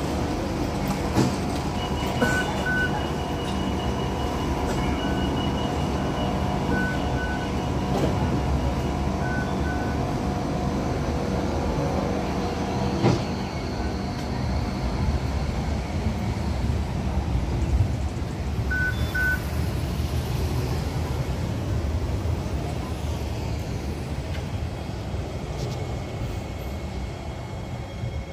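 Hong Kong light rail train standing at the platform, a steady low rumble with a constant hum. Pairs of short high beeps sound four times, at about two, seven, nine and nineteen seconds in.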